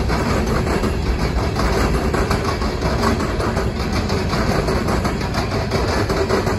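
Freight train of open-top hopper cars rolling past at close range: steel wheels rumbling on the rails in a steady, loud din with many small clicks.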